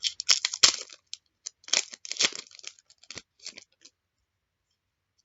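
Crinkly wrapper of a trading card pack being torn open and crumpled, a run of sharp rustles that tails off near the end.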